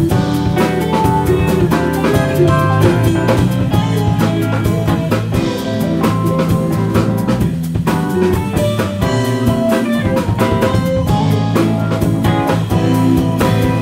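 Live instrumental funk-fusion band playing: electric guitar, bass guitar and keyboards over a busy drum kit groove.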